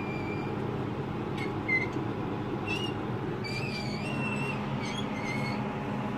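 Steady hum of a running conveyor pizza oven, its belt drive and cooling fan, with short, thin, high squeaks at irregular moments from the wire-mesh conveyor belt moving over its rollers.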